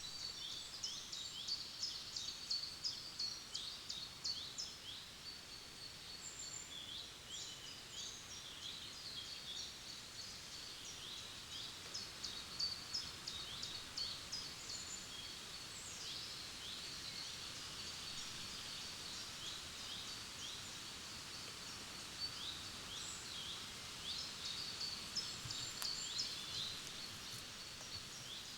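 Forest songbirds chirping and singing with many quick, high notes and short trills throughout, over a faint steady rush of a calm river.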